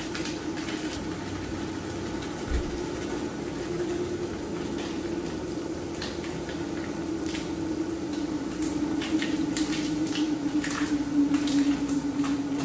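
Chicken frying in a pan on a Coleman propane camp stove: a steady burner hum with scattered sizzling crackles, growing a little louder near the end.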